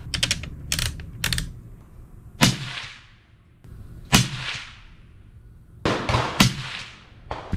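Three suppressed rifle shots from a .308 Winchester bolt-action rifle with a suppressor, each a sharp report with a short fading tail, about two seconds apart. A few light clicks come first.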